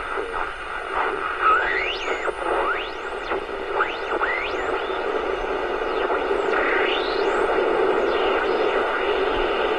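Small Hengxing AM pocket radio's speaker giving a steady hiss of static, with several whistles sliding up and down in pitch: the sound of tuning between stations on the AM band.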